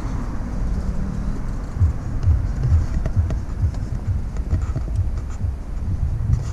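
A run of soft low thuds, irregular but about two a second, over a steady low rumble, with a few faint ticks.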